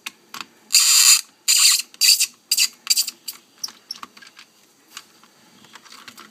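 A tight T7 Torx screw squeaking as it is turned out of a plastic dashboard clock housing. There are about five loud squeaks in a row, the first about a second long and the later ones shorter, followed by a few small clicks.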